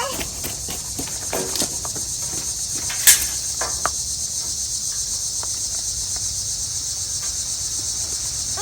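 Steady, high-pitched insect chorus, a fine pulsing chirr that does not let up, with a few short knocks and scrapes over it, the sharpest a click about three seconds in.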